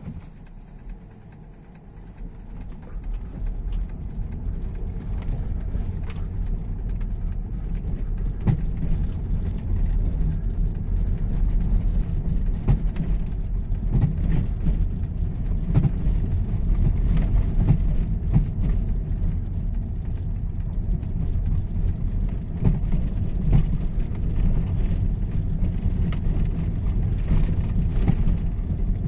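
Volvo V50 T5 on the move, with steady engine and road rumble and irregular sharp knocks over bumps, the sign of a worn engine mount. The rumble grows louder over the first few seconds.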